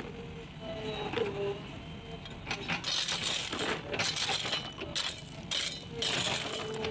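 Gravel and stones clattering and crunching as a JCB backhoe loader's bucket works them, over the machine's steady engine rumble. The irregular clatter grows busier from about two and a half seconds in.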